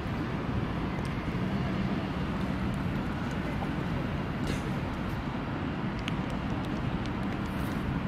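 Steady background rumble of distant city traffic, with faint voices now and then.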